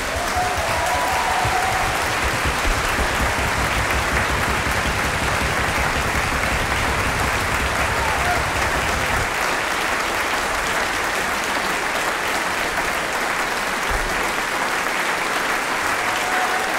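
Concert-hall audience applauding, a dense steady clapping that fills the hall. It is heavier and fuller for the first nine seconds or so, then thins slightly.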